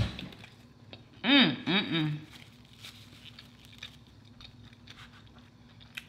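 A sharp click at the start, then a woman's three short humming 'mmm' sounds about a second in, each rising and falling in pitch. After that come faint clicks and soft handling sounds as her hands pull at a cheeseburger slider.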